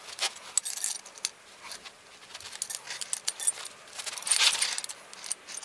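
A metal spanner clicking and clinking against the bolts of a turbocharger's core retaining plates as they are given a final tightening. The clicks are short and irregular, with a denser rattle of metal about four seconds in.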